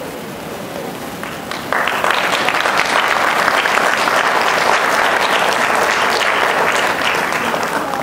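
Audience applauding, starting suddenly about two seconds in and dying away near the end.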